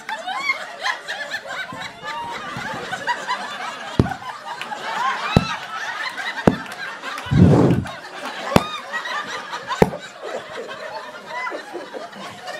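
Comedy-club audience laughing and chuckling in a small room, with a few sharp single claps or mic knocks and one loud low thud about halfway through.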